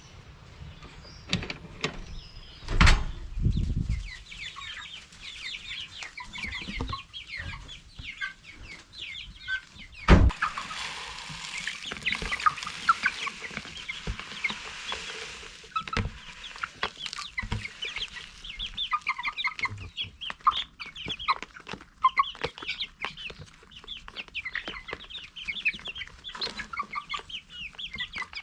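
A flock of chickens clucking, with many short overlapping calls. Loud knocks come about three seconds and ten seconds in, and a hissing rush runs from about ten to fifteen seconds in.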